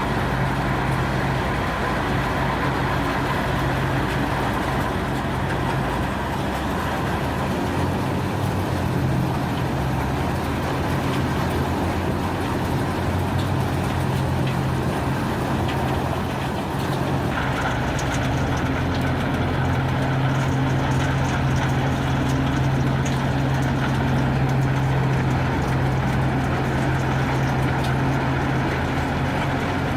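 Komptech Axtor 6010 wood shredder running: a steady low engine drone under a dense, continuous grinding noise from the shredding drum. The higher part of the sound shifts a little past halfway.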